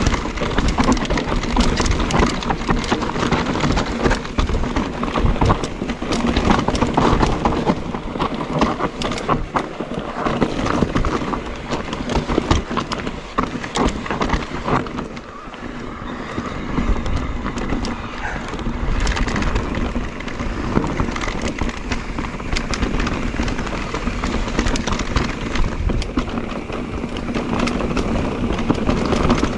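Mondraker Crafty electric mountain bike ridden over a rough, rocky trail: tyres crunching over stones with the bike rattling and a dense run of clicks and knocks, easing off somewhat around the middle.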